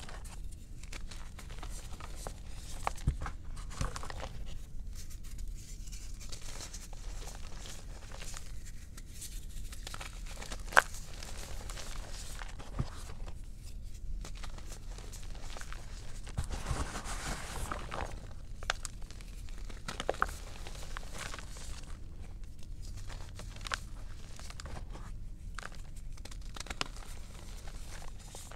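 Thin slabs of gym chalk crumbled and crushed by hand into loose powder: soft crunching and crackling with scattered sharp snaps, one louder snap about eleven seconds in.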